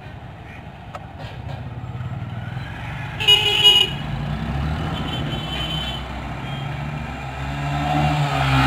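Road traffic heard from inside a car's cabin: a steady low vehicle rumble, a short horn toot about three seconds in, and a heavier engine rumble swelling as a vehicle passes near the end.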